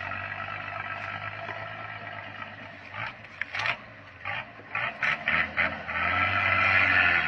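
Bedford truck sounding off: a steady, pitched sound that breaks into a run of about seven short blasts in the middle, then holds steady and louder near the end.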